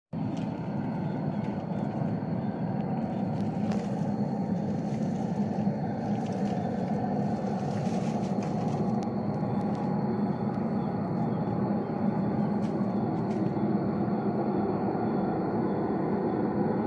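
A steady, low droning rumble from the sky: the 'sky trumpets' noise, which a physicist explained as a skyquake, an acoustic disturbance from air compression travelling through the atmosphere. A faint steady high tone sits above it.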